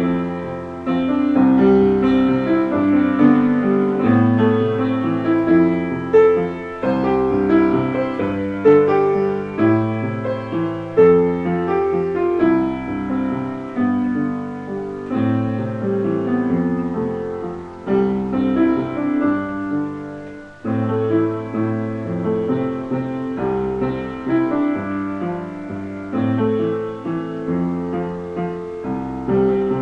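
Solo piano playing: chords with a melody over them, continuous, with a brief drop in loudness about two-thirds of the way through.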